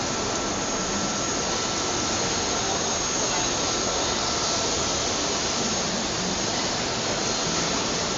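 Steady running noise of a LANSON GM2-LS120S injection molding machine in operation: an even hiss and hum with a faint, constant high whine.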